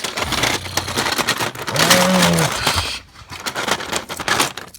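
Plastic toy and Lego pieces clicking and rattling as they are handled, with a short vocal sound about two seconds in.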